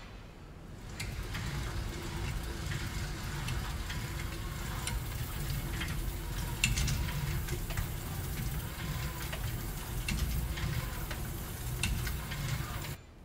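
Stationary exercise bike being pedalled: a steady whirring rumble from the flywheel with a faint hum, and scattered clicks and rattles from the mechanism. It starts about a second in and stops abruptly just before the end.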